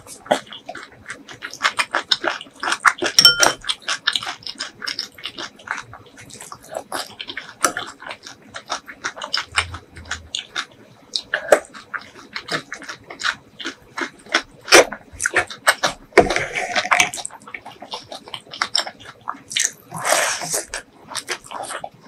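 Close-up eating sounds: chewing with many wet smacks and clicks of the lips and mouth, irregular and without words.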